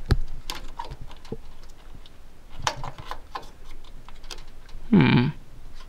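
Irregular small clicks and taps of hands working parts inside an open desktop computer case, while fitting a memory module among the cables. A short vocal sound from the man comes near the end.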